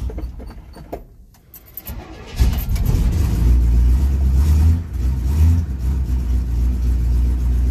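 1967 Chevy C10 pickup's engine, heard from inside the cab, dies away within the first second and goes quiet. About two and a half seconds in it fires back up at once and settles into a steady idle, with two brief rises in revs.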